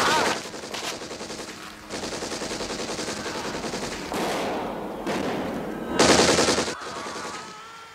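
Machine gun firing long, rapid bursts of shots, loudest about six seconds in, then dying away near the end.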